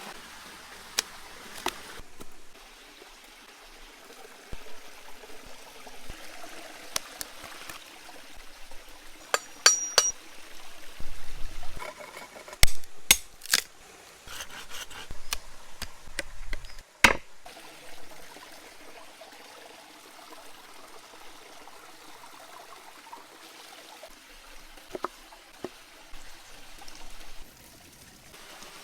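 Food-preparation sounds: scattered sharp clicks and knocks of utensils and cookware, with stretches of pouring or trickling liquid.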